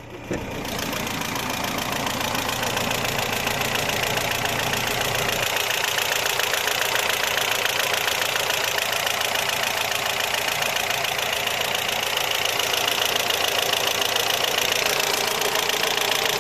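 BMW M42 1.8-litre four-cylinder twin-cam engine in an E36 318is idling with a steady, fast ticking. The ticking came on suddenly after a highway drive, and its cause is unknown. A short click comes a third of a second in, after which the engine sound is louder.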